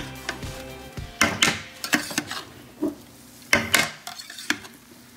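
Metal spatula scraping and knocking against the sides of a steel stockpot in several short strokes, as freshly steamed pulao rice is turned over and broken up.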